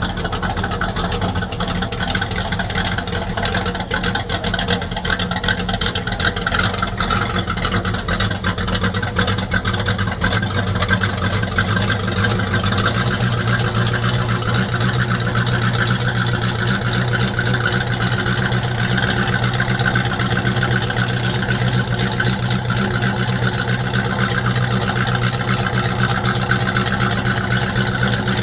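Vehicle engine running steadily while driving along a road, its note shifting about halfway through.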